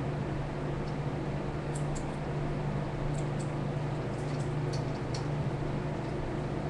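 Steady low room hum, with faint light ticks and clicks of metal rigs and hooks on fishing rods being handled.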